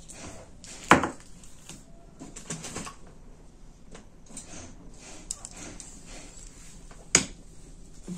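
Small plastic toys set down on a plastic-covered table: a sharp knock about a second in and another near the end, with light tapping and rustling between.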